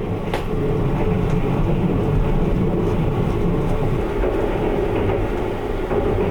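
Sunrise Express sleeper train running on the rails: a steady rumble with a held tone and a few sharp clicks.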